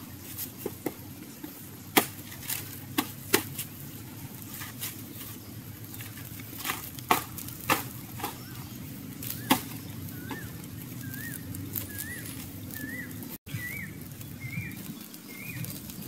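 Small open fire of twigs and burning feathers crackling, with a few sharp pops. From about ten seconds in, a bird calls repeatedly: short rising-then-falling chirps, somewhat under two a second.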